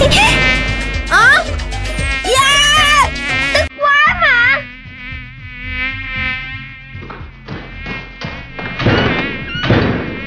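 Mosquito buzzing, a high whine that wavers up and down in pitch, loudest in the first few seconds and dying away after about seven seconds.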